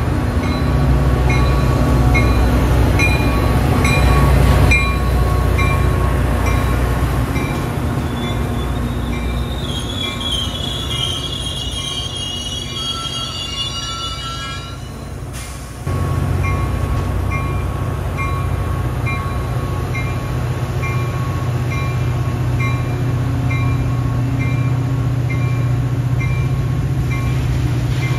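Metra commuter train arriving: the diesel locomotive's engine runs low and steady as the double-deck cars roll past, with wheel and brake squeal rising and falling for a few seconds in the middle as the train slows for its stop. A grade-crossing bell rings steadily throughout.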